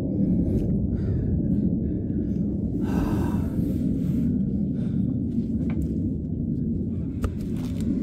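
Low, steady rumble of wind buffeting the microphone, with a brief faint sound about three seconds in and a single click near the end.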